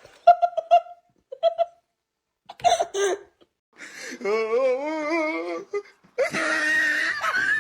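A person laughing in short bursts, then a long wavering high-pitched cry and a harsh drawn-out yell near the end.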